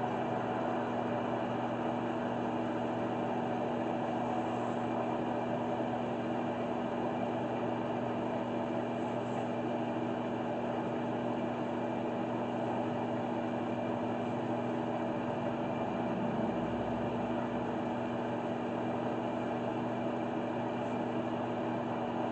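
Wood lathe running at a steady speed, its motor giving a constant hum with several steady tones, while it spins the workpiece as finish is rubbed onto it.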